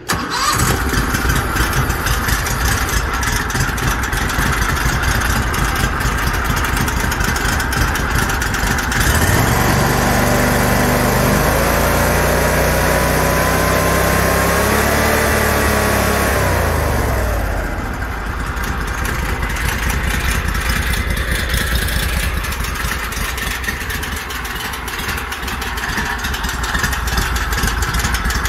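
DuroMax 713cc V-twin engine, run for the first time on its newly fitted Mikuni carburetor with no air filter, starts suddenly and runs. About nine seconds in it is revved, climbing in pitch for several seconds, then drops back and settles into a steady idle.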